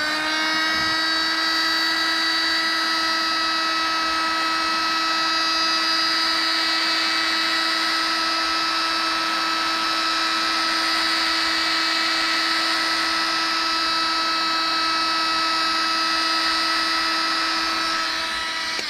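Hot-air heat gun running: its fan motor spins up to a steady, high whine with a rushing air noise and switches off near the end. It is blowing hot air to soften the screen adhesive.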